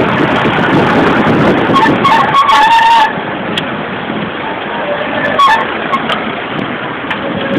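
Steady engine and road noise of a car driving through city traffic, louder for the first three seconds and then dropping a little.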